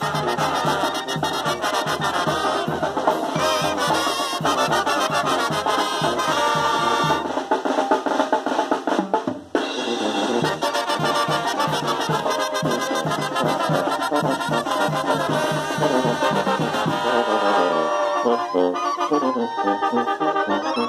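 Brass band music: trumpets and trombones playing a lively tune over drums, with a brief drop in loudness about nine and a half seconds in.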